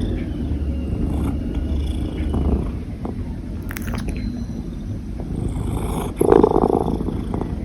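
Domestic cat purring with a steady low rumble, interrupted by short hiccup jolts; a louder short sound comes about six seconds in.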